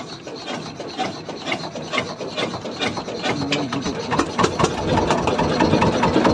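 Fishing boat's inboard engine being hand-cranked: rhythmic knocks about twice a second that quicken, then the engine catches about five seconds in and keeps running, growing louder.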